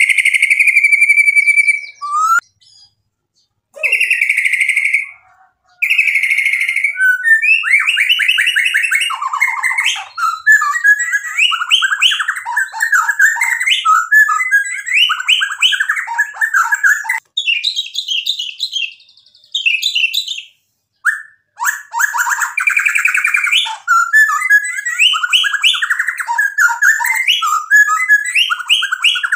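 Male white-rumped shama singing: three long whistled notes in the first seven seconds, then rapid, varied phrases of jumping and sliding notes, with a short buzzy high trill and a brief pause about two-thirds of the way through before the song resumes.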